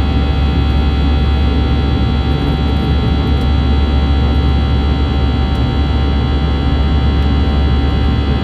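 Airbus A321-211's CFM56-5B turbofan engines heard from inside the cabin during the climb after takeoff: a loud, steady low rumble with several steady whining fan tones over it.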